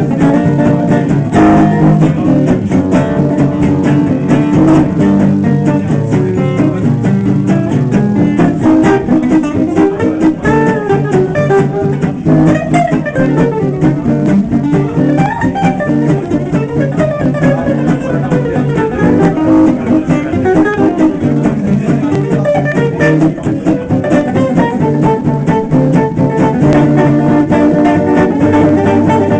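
Two Selmer-style acoustic guitars playing gypsy-jazz swing: fast single-note lead runs over a steady strummed rhythm accompaniment.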